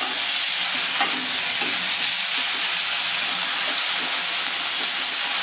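Spiced masala of onion, tomato and dried loitta fish sizzling steadily in hot oil in a kadhai, while a spatula stirs it, with a brief knock about a second in.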